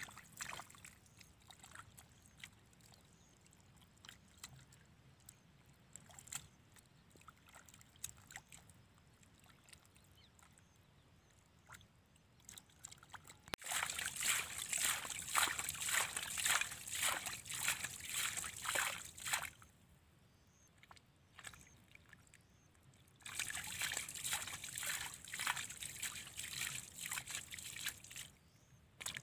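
Hands slapping and squelching wet mud and shallow muddy water at the edge of a small pit. It starts as a few faint, scattered splashes, then comes in two spells of quick, steady slapping splashes several seconds long, one about halfway through and one near the end.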